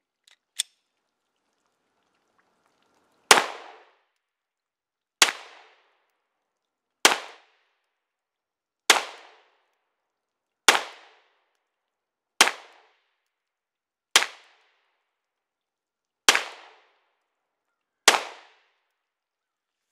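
Polymer 80 Glock 19-pattern 9mm pistol: two metallic clicks at the start as the slide is worked to clear a failure to feed, then nine single shots fired at a slow, even pace about two seconds apart, each a sharp crack followed by a brief echo.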